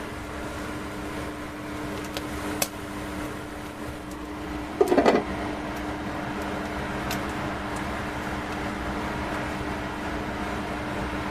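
Microwave oven running with a steady hum while heating a whole Pacific saury. A sharp click comes about two and a half seconds in, and a short crackly burst, the loudest sound, comes about five seconds in.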